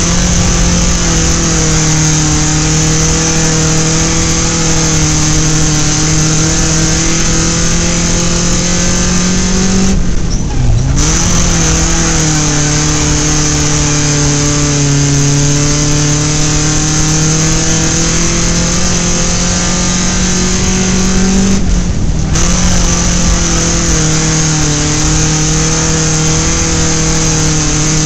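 Dirt-track race car's engine heard from inside the car, running hard at high, steady revs. Twice, about ten seconds and about twenty-two seconds in, the throttle is briefly lifted: the engine drops in pitch, then climbs back up.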